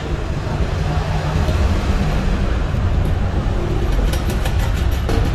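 Steady low rumble and hum of machinery running.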